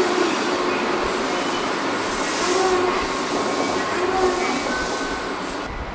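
Toei 5300 series subway train slowing to a stop at a platform, its GTO-VVVF inverter sounding in several steady tones that change pitch as it slows. A burst of air hiss comes about two seconds in.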